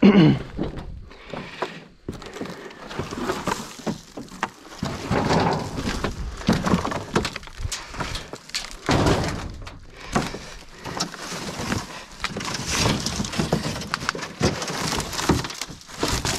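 Corrugated tin roofing sheets and old wooden boards being lifted and shifted by hand: irregular clattering, scraping and thuds of metal and wood, with a loud bang right at the start.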